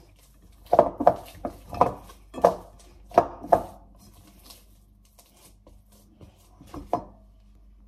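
Butter and dough being mashed and pressed by hand in a glass bowl: a series of dull thumps, most of them in the first four seconds, with a pair near the end.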